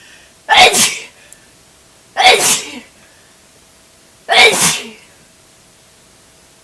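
A person sneezing loudly three times, about two seconds apart.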